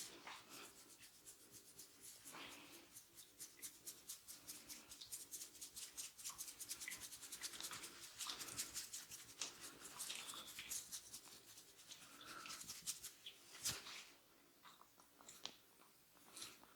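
Hands working over the scalp and through the hair in a head massage: a quick run of faint, crisp rubbing strokes, several a second, with one sharper knock near the end.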